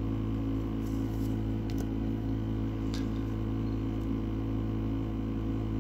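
Steady low room hum, with a few faint soft ticks of trading cards being handled and shuffled.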